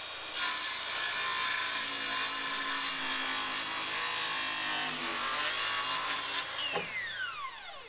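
Circular saw cutting across the bottom of a wooden door jamb upright, a steady high motor whine under the rough noise of the blade in the wood. The cut ends about six and a half seconds in, and the saw winds down with a falling whine.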